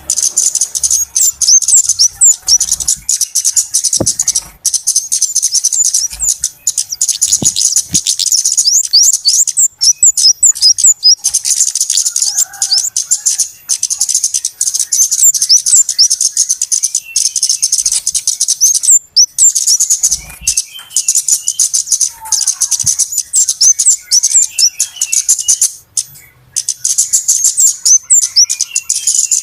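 A dense, busy chorus of flowerpecker calls: rapid, high-pitched ticking chips and short flicks, many birds overlapping almost without pause, the sound of a bird-lure recording meant to draw in small birds.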